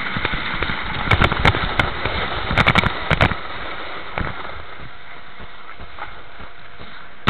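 Steady rushing noise of sliding over snow on a ski slope, with clusters of sharp knocks and clicks about a second in and again around three seconds in, then a steadier stretch.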